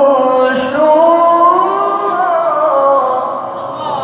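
An elderly male Qur'an reciter (qari) holds one long melismatic vowel in the drawn-out murattal/tilawah style. His voice bends slowly up and down through a winding melody without a break.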